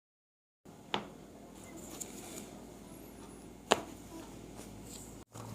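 Two short, sharp cracks about three seconds apart, the second louder, from chiropractic manipulation thrusts.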